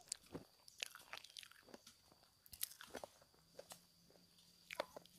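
Faint chewing and crunching of a person eating, in short, irregular crunches.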